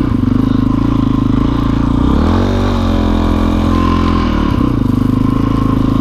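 Dirt bike engine running under way on a snowy road; its note drops for about two seconds midway, then picks back up.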